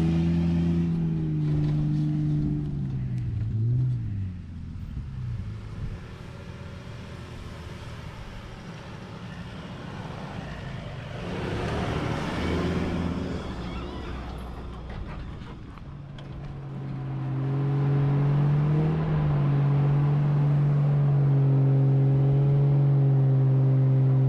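4WD engine working under load as it pulls a boat trailer through soft sand, its note dropping and fading away over the first few seconds. Another 4WD ute drives past close by about halfway through. From about two-thirds of the way in, a loud, steady engine note from a vehicle driving along the sand track.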